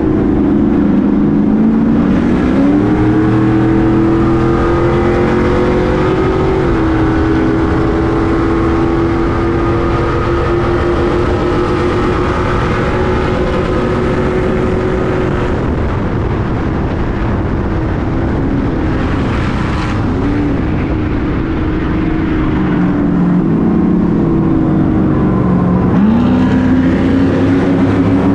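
Stadium Super Truck's V8 racing engine running hard, its revs climbing about two seconds in, holding high, easing off past the halfway point and climbing again near the end.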